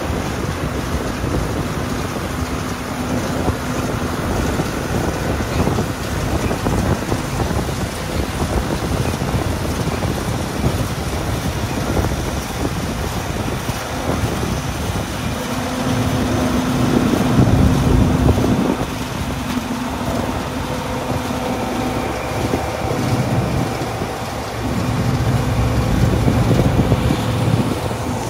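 Peanut harvester running: a dense, steady mechanical noise with a hum, swelling louder twice for a couple of seconds.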